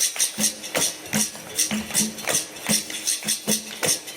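Live capoeira music: a pandeiro's jingles and percussion strokes keeping a steady rhythm, about two to three strokes a second.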